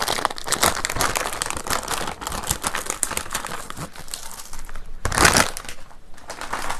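Plastic packaging of Buldak Bokkeum-myeon instant noodles crinkling as it is handled and torn open to get at the sauce sachet, with a louder rustle about five seconds in.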